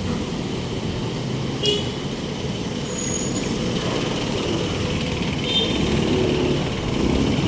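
Road traffic noise: motor vehicles passing on a busy city street, with a brief horn toot.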